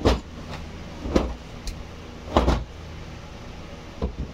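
Clothes being shaken out with sharp flapping snaps, three loud ones roughly a second apart and a few softer ones, over a steady low hum.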